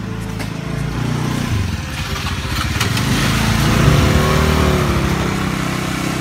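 Motor scooter engines running close by; one scooter pulls away beside the listener, its engine loudest and changing pitch about four seconds in.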